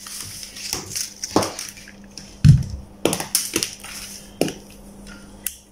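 Handling noise from a Fluke digital multimeter and its test leads being picked up and set in place: a string of irregular clicks and knocks, with a duller thump about two and a half seconds in. A faint steady hum runs underneath.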